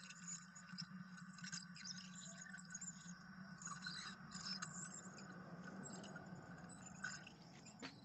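Opened ceiling fan motor (outer rotor around a copper-wound stator) turning with a steady low hum, overlaid with frequent irregular ticks and scraping clicks.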